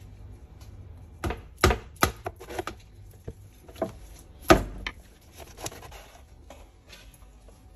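Large kitchen knife chopping through barracuda on a wooden cutting board: a run of irregular sharp chops and knocks, the loudest about four and a half seconds in.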